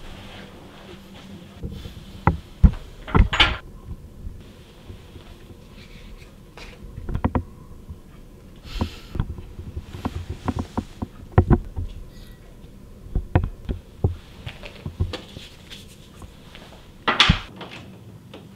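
Scattered knocks and clicks of small objects handled on a glass tabletop: a small jar, a cup and drinking glasses. Two short, louder scraping bursts come about three seconds in and near the end.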